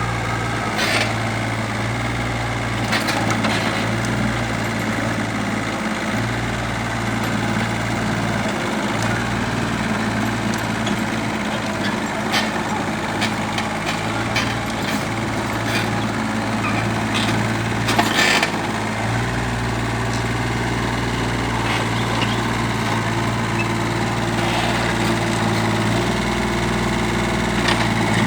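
Hitachi EX30-1 mini excavator's diesel engine running steadily, its note shifting a few times as the load changes, with occasional sharp knocks.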